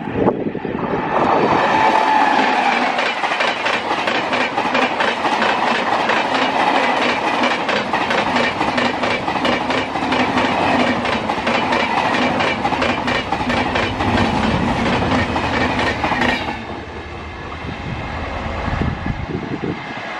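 Express passenger train running past at speed, its coach wheels clattering rapidly over the rail joints. The noise cuts off sharply about sixteen seconds in as the train clears, leaving a quieter low rumble that fades away.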